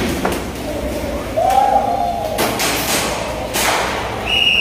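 Airsoft guns firing in bursts in an indoor arena, with a long shouted call in between and a high steady tone starting near the end.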